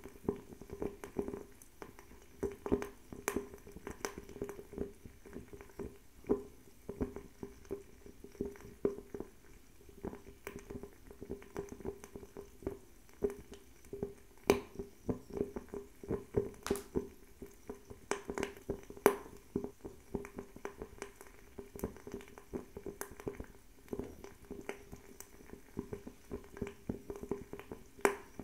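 Fire crackling: irregular sharp pops and snaps, a few much louder than the rest, over a steady low sound of the flames.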